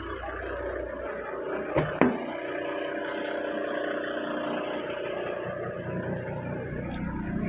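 Toyota Land Cruiser engine idling steadily, with two sharp knocks close together about two seconds in.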